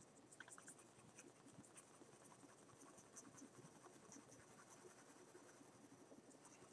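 Faint scratching of a mechanical pencil's graphite on paper: light, irregular shading strokes laying in a background tone.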